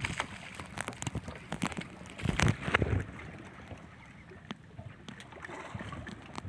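Water sloshing and slapping against the hull of a small outrigger fishing boat at sea, with scattered short knocks and clicks. It is loudest in a burst of splashing a little over two seconds in.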